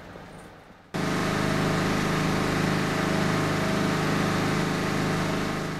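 Portable air compressors carried aboard a dead E331 series EMU, running steadily with an engine-like drone; the sound comes in abruptly about a second in.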